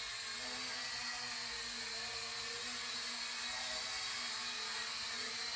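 Toy quadcopter drone's small electric motors and propellers whirring in flight: a steady buzzing whir whose pitch wavers slightly.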